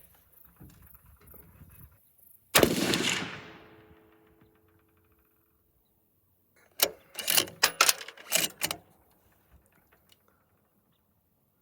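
A single unsuppressed 6.5 Creedmoor rifle shot about two and a half seconds in, ringing out for over a second. It is followed around seven to nine seconds in by a quick run of sharp metallic clicks and clacks, typical of a bolt-action being cycled for the next round.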